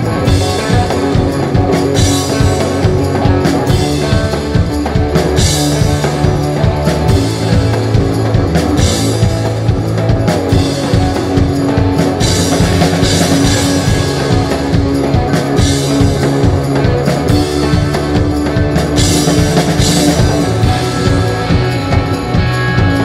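Rock band playing live, an instrumental stretch: electric guitars and bass holding sustained notes over a drum kit, with cymbal crashes every couple of seconds.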